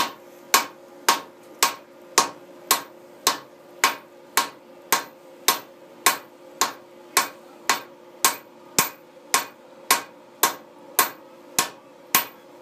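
A 6-pound sledgehammer striking a hot axe bit on an anvil in a steady rhythm of about two blows a second, each with a short metallic ring: forge-welding the bit.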